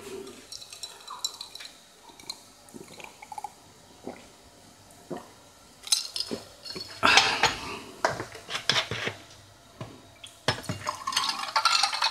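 Kitchen clatter of glass and utensils being handled with short clinks and knocks, and a drink poured from a bottle into a glass in a couple of longer hissing stretches in the second half.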